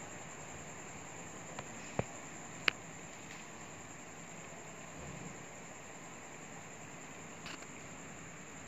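Quiet background hiss with a continuous high-pitched whine, broken by a few faint clicks about two seconds in and again near the end.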